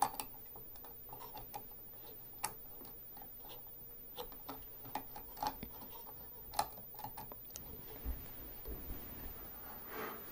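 Small plastic clicks and taps at an irregular pace as the trigger, spring and switch parts of a Dyson V8 vacuum's handle are handled and fitted back into the housing.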